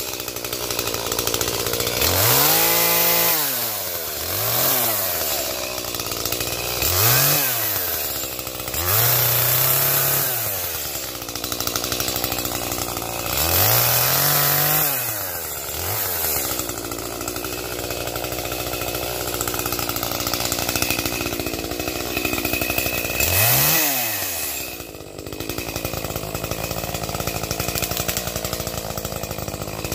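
Chainsaw cutting firewood. The engine revs up and drops back about eight times over the first half, then runs more steadily, with one more rev-and-drop a little past the middle.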